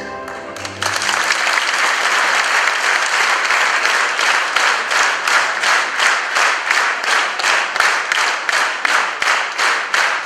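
A band's final held note ends under a second in, and audience applause breaks out, settling after a few seconds into rhythmic clapping in unison, about two to three claps a second.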